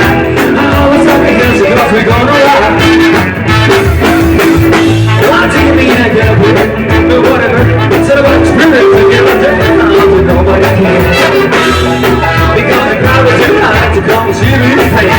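Live band playing loud amplified music with a steady, driving bass line.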